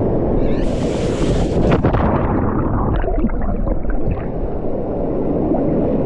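A person jumping into a waterfall's plunge pool: a loud splash of water about half a second in, then a steady rush of churning, bubbling water.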